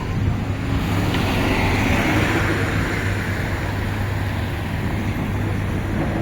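Road vehicle noise: a steady low engine hum under a wash of road noise that swells and then fades over the first few seconds.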